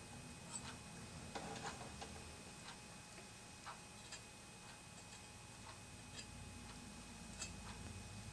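Faint, irregular small clicks and crackles from soldering iron and solder working on a metal carburetor float, with a short cluster of them about one and a half seconds in.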